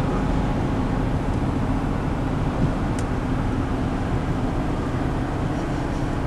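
Steady drone of a car being driven at road speed, engine and tyre noise heard from inside the cabin. There is a single short high tick about three seconds in.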